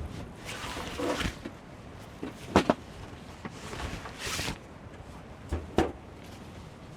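Camping gear being handled: two swishing rustles and four sharp knocks, the knocks coming in two close pairs.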